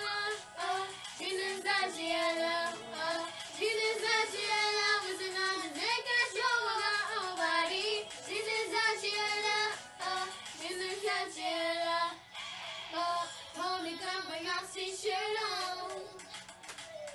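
Two young girls singing a song together, holding and bending sung notes.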